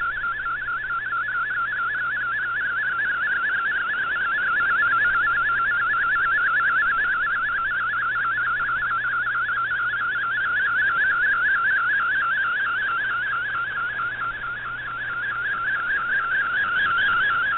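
Shortwave digital-mode picture transmission (MFSK image) heard through an Icom IC-R8600 receiver in AM: a continuous, rapidly warbling tone with a fainter higher warble above it. Its strength swells and sinks as the signal fades, dipping about fourteen seconds in.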